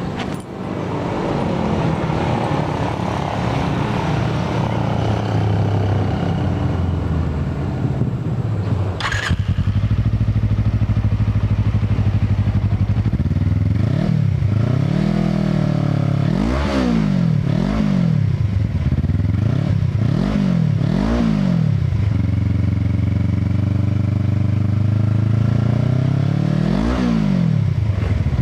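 Suzuki Inazuma 250's parallel-twin engine running through a JetHot aftermarket muffler: it idles steadily, then is revved in about six quick blips in a row about halfway through, drops back to idle, and is revved once more near the end.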